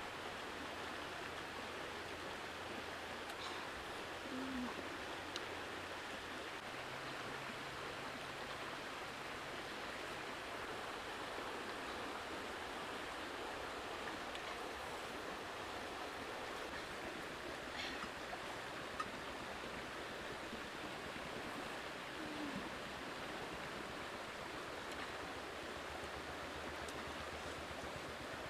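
Steady rushing of a shallow river flowing over stones, with a few faint sharp clicks.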